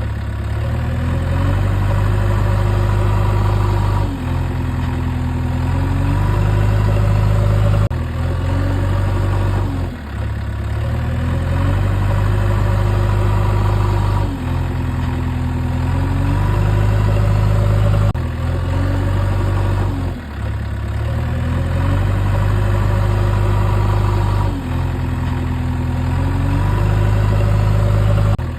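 A loud engine-running sound played as a loop. The same pattern comes round about every four seconds, stepping up and down in pitch.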